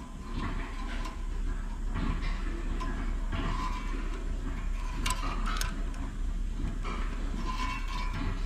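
Small metallic clicks and taps as a spring is worked onto the throttle linkage of a generator carburetor by hand, with two sharper clicks about five seconds in, over a steady low hum.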